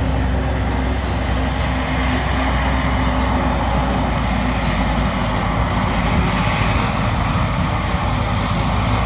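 Self-propelled forage harvester chopping maize and blowing it into a trailer, with tractors running alongside: a loud, steady machine drone with a deep engine note under a broad rushing noise.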